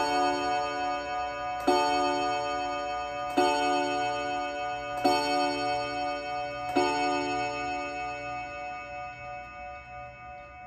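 Urgos mantel clock striking the hour: five evenly spaced strokes on the same note, about 1.7 seconds apart, the last one ringing away.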